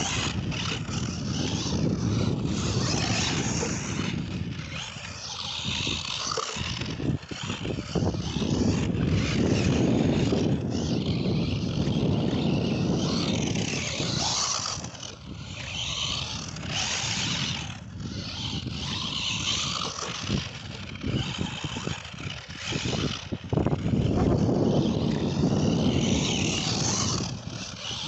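Tamiya TL-01 electric radio-controlled car driving on loose dirt, its tyres scraping and spraying grit; the noise rises and falls as it speeds up, turns and slows.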